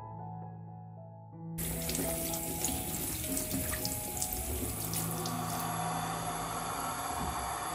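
Kitchen tap water running steadily, rinsing king oyster mushrooms; it starts about a second and a half in.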